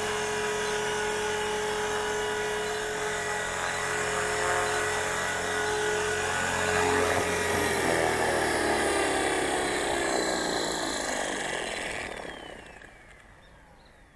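ALZRC X360 electric RC helicopter running with a steady high motor and gear whine and rotor noise, its main gear newly replaced. About halfway through, the pitch starts falling as the rotor head spools down, and the sound fades away near the end.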